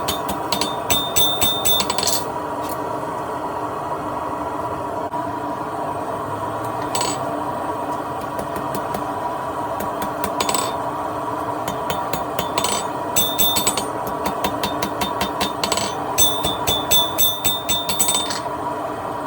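Blacksmith's hammer striking hot steel on an anvil: a quick run of blows at the start, scattered single blows, then two more quick runs in the second half, some ringing. A steady hum runs underneath.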